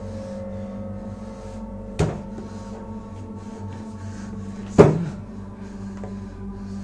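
Two sharp knocks, about two seconds in and again nearly three seconds later, the second louder with a short ring after it, over a low steady hum with held tones.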